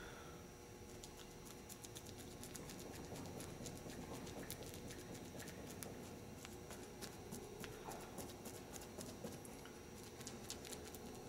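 Faint, rapid, irregular taps and wet squishes of a resin brush dabbing and stippling resin into fiberglass mat, starting about a second in, over a steady background hum.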